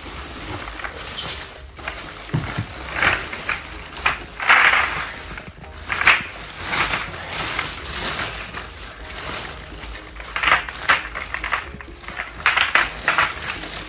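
Small glass bottles clinking against each other in a plastic bag as it is handled, with crinkling of the plastic bag and bubble wrap in irregular bursts.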